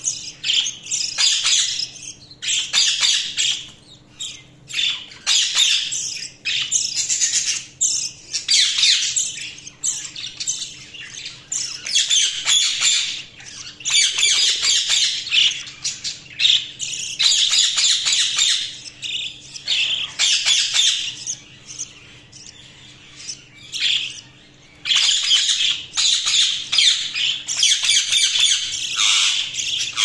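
A group of budgerigars chirping and squawking in bouts of rapid, high-pitched chatter, with short pauses and a quieter lull about two-thirds of the way through.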